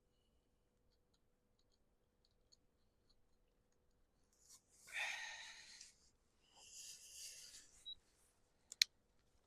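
Quiet hand work on a chainsaw's ignition coil wires: faint scattered clicks, two short hissing, rustle-like sounds midway, and one sharp click near the end.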